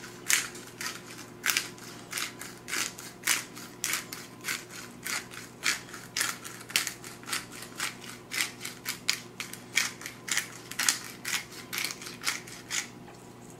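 Hand pepper mill being twisted to grind peppercorns: a long run of quick, uneven clicks, several a second.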